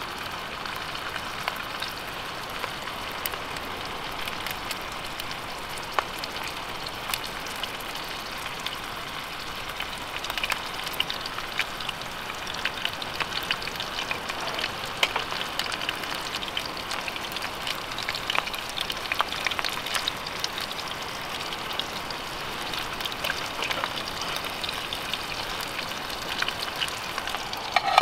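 Salmon fillet frying in a small camping pan on a gas canister stove: a steady sizzle with many small crackling pops.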